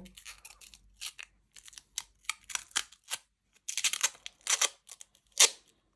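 Fingers handling a true-wireless earbud charging case and picking at its clear plastic protective film: scattered small clicks, taps and crinkles, a few sharper ones in the second half.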